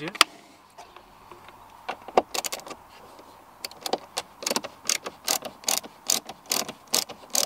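A screwdriver undoing T20 Torx screws in a car's plastic glove-box trim. There are a few scattered clicks, then from about three and a half seconds in a steady run of sharp clicks, about three a second.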